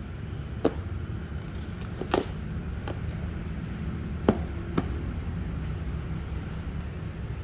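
A few separate sharp clicks from the low-profile GL Clicky switches of a Logitech G913 TKL keyboard, one key at a time with pauses between, two close together about two seconds in. A steady low hum sits underneath.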